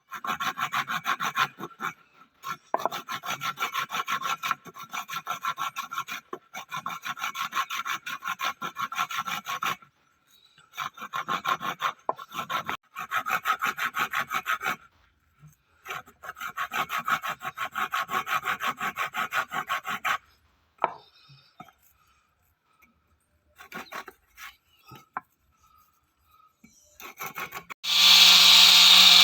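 A hand tool is worked back and forth on wood in runs of rhythmic strokes, about two to three a second, with short pauses between the runs. Near the end a power tool starts up, much louder, and runs steadily.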